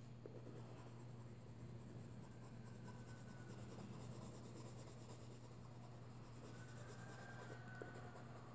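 Faint scratching of a coloured pencil on paper as it shades in small strokes, over a steady low hum.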